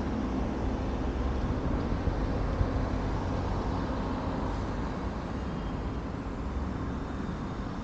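A car driving, heard from a microphone on its roof: a steady rumble of engine and road noise mixed with wind on the microphone.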